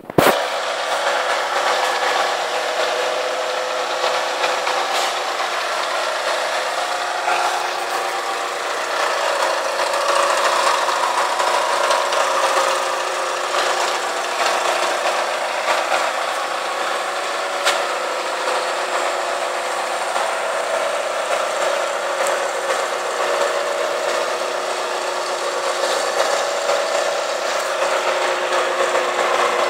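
CNC vertical milling machine cutting a vise-held workpiece with an end mill: a steady machining noise with a high hiss over a few held tones. It starts abruptly with a sharp click.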